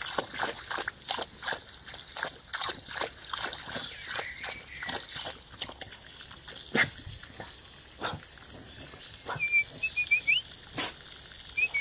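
Dog lapping water from the trickling stream of a garden hose, a quick run of wet laps about three a second that thins out after five seconds or so into a few separate clicks.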